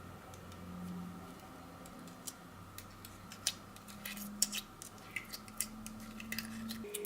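Slime being mixed and squished, giving irregular small clicks and crackling pops that come more often in the second half.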